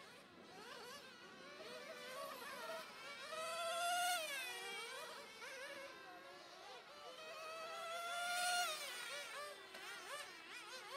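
1/10-scale radio-controlled touring cars racing: several high-pitched motor whines overlap, rising in pitch as the cars accelerate and dropping sharply as they pass. It is loudest twice, a few seconds in and again past the middle.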